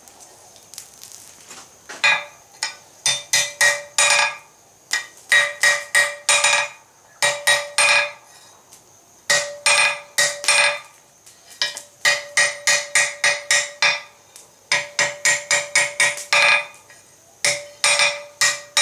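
Hand hammer striking hot steel tong blanks on an anvil in runs of quick blows, about three a second, each with a clear metallic ring, starting about two seconds in with short pauses between runs: the jaws of flat jaw tongs being straightened after punching their rivet holes.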